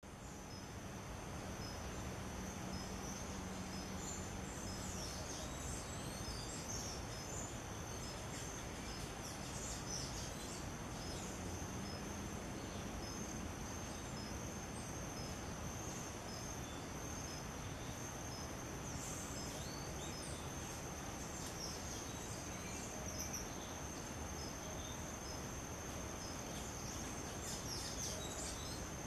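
Outdoor garden ambience: a steady high-pitched insect drone runs under an even background hiss, with a faint regular tick and scattered short bird chirps.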